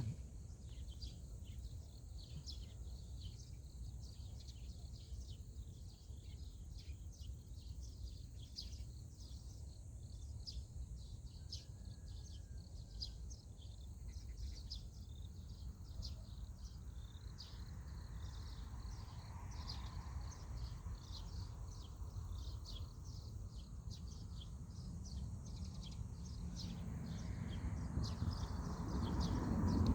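Outdoor ambience: many short, high-pitched chirps repeating over a steady low rumble. A softer wash of noise swells about two-thirds of the way in and again, louder, near the end.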